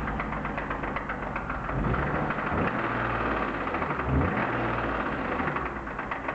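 BMW M52B25 inline-six idling with one ignition coil connector pulled, a fast regular knocking running through it. The knock stays unchanged with that cylinder's ignition cut, which leaves the owner doubting it is a rod bearing.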